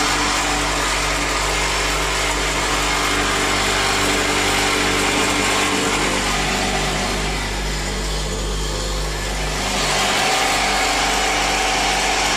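Electric motors of a powder loading machine running steadily, a loud hum with a whir over it. The tone shifts slightly about six seconds in and again about ten seconds in.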